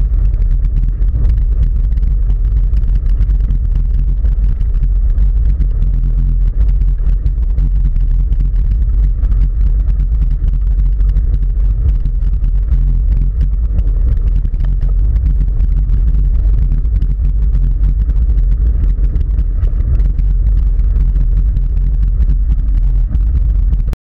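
Steady, loud low rumble of wind and vibration on the microphone of a camera riding on a mountain bike, with a faint fine crackle of tyres rolling over a gravel track.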